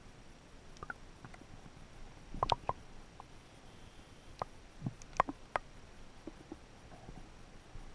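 Muffled underwater sound: a low hiss with scattered sharp clicks and knocks, a quick cluster about two and a half seconds in and several more around five seconds.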